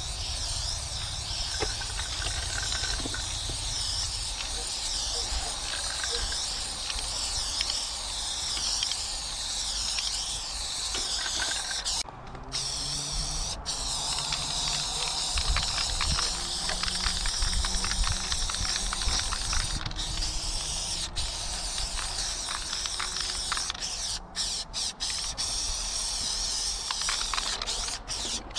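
Aerosol spray-paint can hissing in long steady sprays as white paint is laid on a concrete wall, broken by brief pauses where the nozzle is let go, once about twelve seconds in and several times near the end. A low rumble runs underneath.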